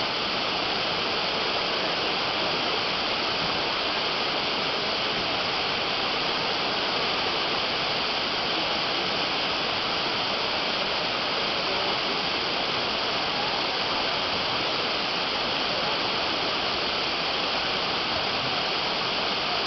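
Swift river water rushing steadily, an even, unbroken hiss of flowing current.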